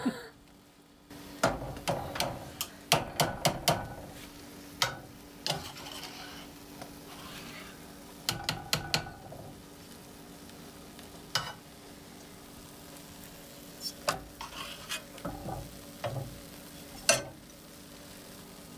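Omelet and wine cap mushrooms sizzling in cast iron skillets, the sizzle starting about a second in. A spatula clicks and scrapes against the pans in repeated bursts as mushrooms are spooned onto the omelet.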